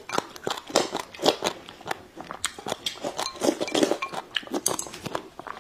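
A person eating rice porridge close to the microphone, slurping it from the bowl's rim while pushing it in with chopsticks. Chewing runs throughout, with many short crunches and wet mouth clicks.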